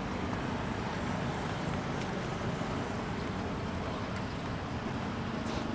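Steady street noise: a low rumble of road traffic.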